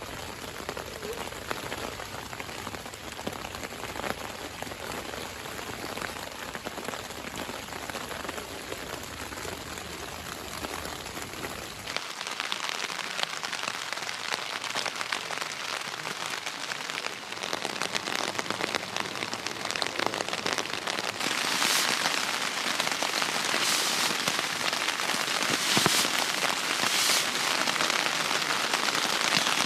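Steady rain pattering, growing louder and heavier over the last several seconds.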